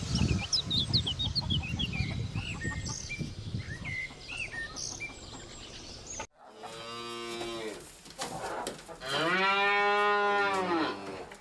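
Birds chirping over low background noise, then, after an abrupt break, a cow mooing twice. The first moo is shorter; the second is a longer, louder one that rises and then falls in pitch.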